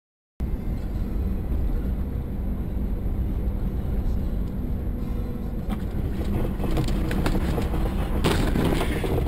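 Steady low engine and road rumble from inside a moving car, starting suddenly about half a second in. Rattles and clicks build up in the second half, and a burst of harsh noise comes near the end.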